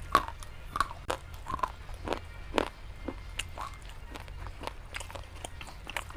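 Close-up chewing: a person biting and grinding a brittle, chalky material between the teeth, with irregular small crackles and clicks. The pieces have gone slightly damp from humidity, so the crunch comes out soft rather than crisp.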